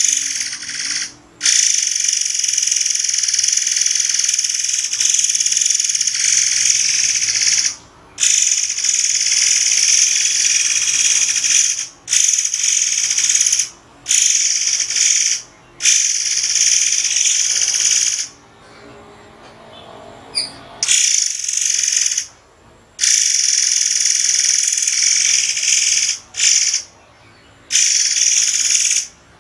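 A murai air giving shrill, very high-pitched calls in long unbroken runs of several seconds, each cut off by a short pause, with a quieter stretch about two thirds of the way through.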